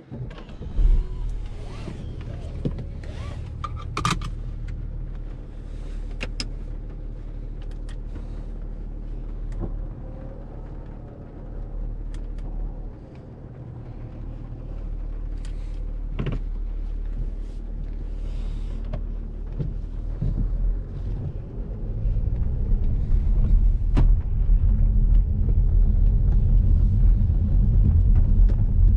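Audi A7 3.0 TDI V6 diesel engine starting with a sudden burst about a second in, then idling steadily, heard from inside the cabin. For the last several seconds it runs louder and deeper as the car pulls away and accelerates.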